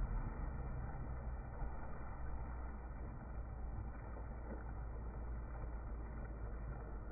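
Water splashing as a child swims in a pool, over a steady low rumble.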